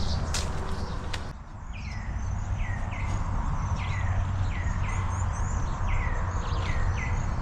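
A bird calling again and again in short chirps that each slide down in pitch, often in quick pairs, over a steady low rumble. Two sharp clicks come about half a second and a second in.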